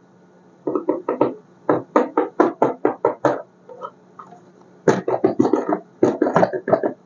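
Background music: quick, evenly spaced pitched notes played in short phrases with brief pauses between them.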